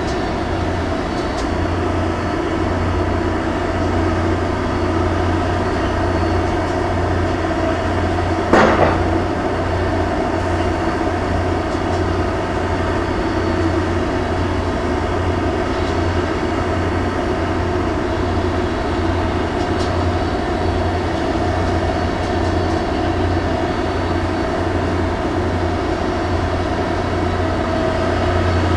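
Steady low drone of heavy machinery from a clamshell grab crane at work unloading a ship, with one sharp bang about nine seconds in.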